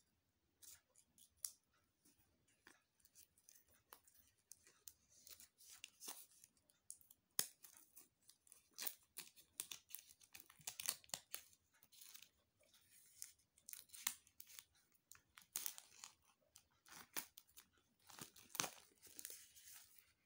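Plastic shrink wrap on a CD being snipped with small scissors, then torn and peeled away, crinkling in many short crackling bursts.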